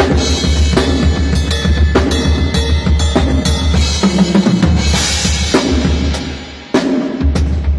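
Drum kit being played, with kick drum, snare and cymbal strikes in a steady beat over a sustained deep bass tone. A cymbal wash swells about four seconds in, and near the end the sound falls away before a sudden strong hit.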